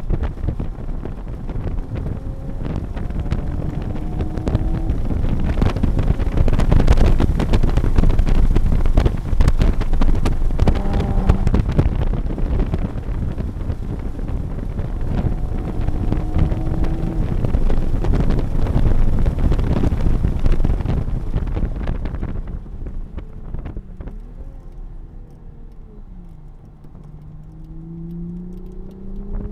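Inside a Toyota GR Supra (A90) being driven hard: loud wind and road noise over the engine at high revs. About 22 seconds in, the noise drops away as the car slows for a slow corner, and near the end the engine revs rise again under full throttle.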